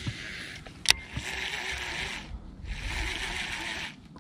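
Baitcasting reel being cranked in short bursts with brief pauses, a crank-and-pause crankbait retrieve. A single sharp click comes just under a second in.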